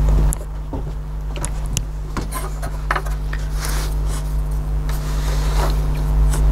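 Hands pulling the plastic cap off a thermos lid: scattered light clicks and rubbing as the silicone-greased cap comes away, over a steady low hum.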